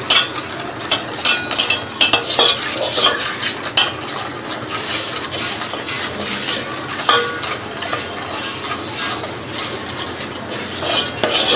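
Steel spoon stirring a thick wet mixture of curd, sugar and vanilla essence in a metal pot, with quick repeated clinks and scrapes against the pot.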